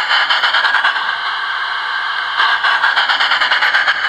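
Steam sound card in a Gauge 1 Hall model locomotive, playing a steady steam hiss through its small speaker, with two runs of rapid chuffs, about eight a second, one at the start and one from about halfway in.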